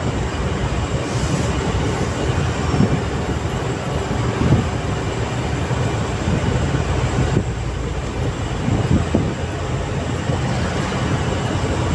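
Steady drone of a truck's engine and tyres on the road, heard from inside the cab while cruising.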